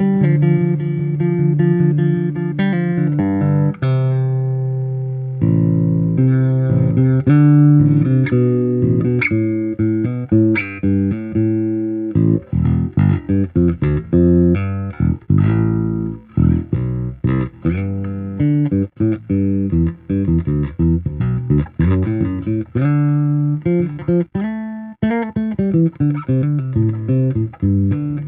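Golden electric bass guitar played solo in a sound test after a setup: plucked notes, held and slower at first, then quicker runs with a few slides between notes.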